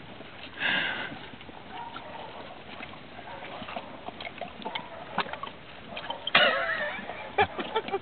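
Horse drinking coffee from a hand-held cup: wet slurping and sloshing of the liquid with small lip and mouth clicks. A short louder noisy burst comes just under a second in, and a louder one a little after six seconds.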